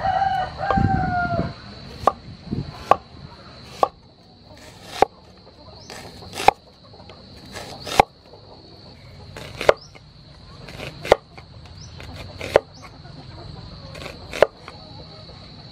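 Cleaver slicing an onion on a wooden cutting board: about ten cuts, each ending in a sharp knock of the blade on the board, roughly one every one and a half seconds. A rooster crows once at the start, and a steady high insect drone sits underneath.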